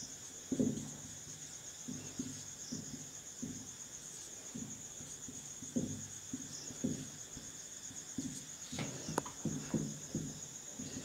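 Short, irregular strokes of a marker pen writing on a whiteboard, over a steady, high-pitched, pulsing insect trill like crickets.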